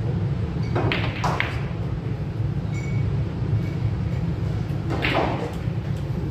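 Pool balls clacking: two sharp hits close together about a second in, as the cue strikes the cue ball and it hits another ball, and another clack about five seconds in. A steady low hum runs underneath.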